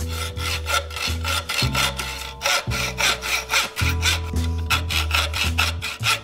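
Hand hacksaw cutting notches into the bit of a hand-forged metal key clamped in a vise, in quick, even back-and-forth strokes. Background music plays underneath.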